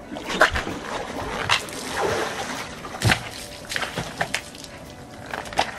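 Hot-tub water sloshing and splashing as a clothed person is pulled out over the tub's rim, with a few knocks and thumps, the loudest about three seconds in.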